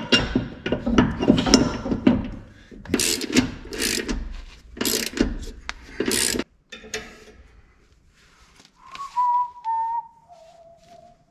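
Metal tool clatter and ratcheting as a wrench works on a trailer's new MORryde CRE3000 equalizer, with several sharp clanks. It stops about six seconds in, and near the end a man whistles a few notes that step down in pitch.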